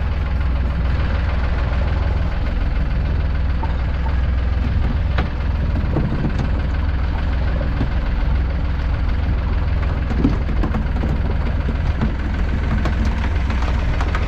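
Fishing boat's engine idling with a steady low drone, with a few brief knocks about five, six and ten seconds in.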